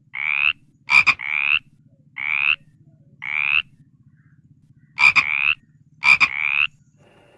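A frog croaking: six separate calls, each about half a second long and rising in pitch, with a sharp click just before three of them.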